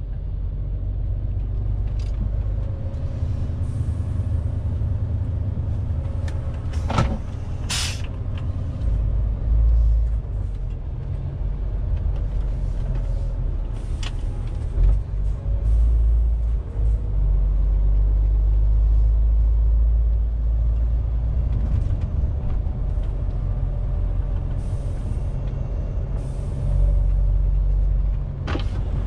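A MAN TGX 470 truck's six-cylinder diesel engine and road noise heard inside the cab while driving, a steady low rumble. A few brief clicks and one short high hiss come through about a third of the way in, and again around the middle and near the end.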